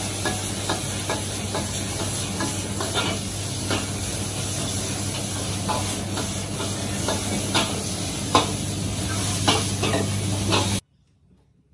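Stir-fry sizzling in a flaming wok over a commercial wok burner, with a steady rush of noise under it and sharp metal clanks of the utensil against the wok every half second to a second. It cuts off suddenly near the end.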